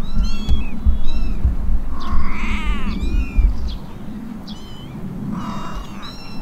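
Month-old kittens mewing: short, high-pitched cries repeated several times, with one longer, lower meow falling in pitch about two seconds in.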